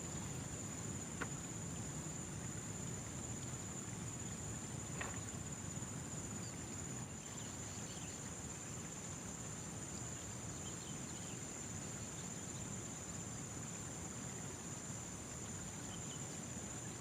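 Steady, high-pitched chirring of crickets in an unbroken chorus, over a low, even background rumble.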